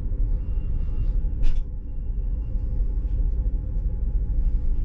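Steady low rumble of a Mk3 sleeper coach running on the track, heard from inside the cabin, with a single sharp knock about a second and a half in.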